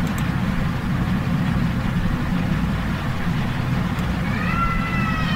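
A steady low background rumble, with a cat meowing once near the end: a single drawn-out meow.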